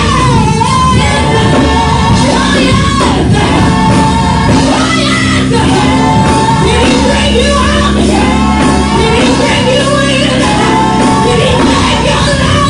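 Live gospel praise music: a woman leading the singing over accompaniment that holds steady low sustained notes.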